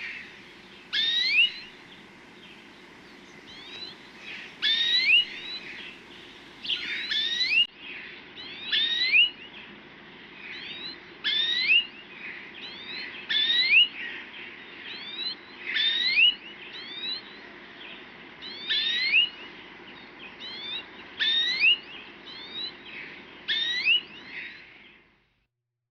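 A bird calling over and over with short rising whistled notes, often two or three close together, every second or two, over a faint steady hum. The calls stop suddenly near the end.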